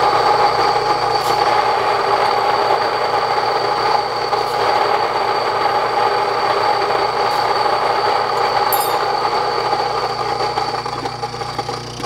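Mockmill 200 stone grain mill running, its motor and millstones grinding hard white wheat into flour with a steady whirring hum that eases slightly near the end.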